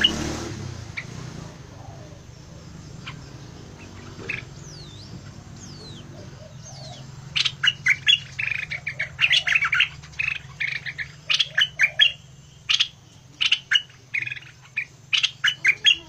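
Caged bulbul calling: a few faint calls and thin whistles at first, then from about seven seconds in a rapid series of short, loud calls.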